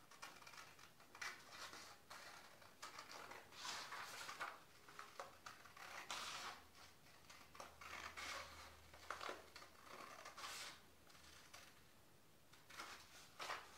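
Scissors snipping through a sheet of graph paper: a faint string of short, irregular cuts with the paper rustling between them.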